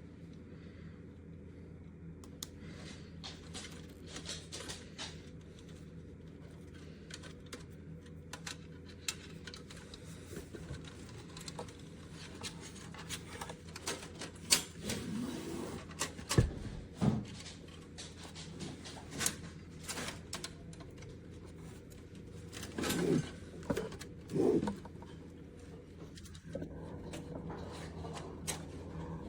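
Irregular clicks, taps and knocks of hard objects being handled, over a steady low electrical hum. One knock stands out about halfway through, and there are two short scraping sounds a few seconds from the end.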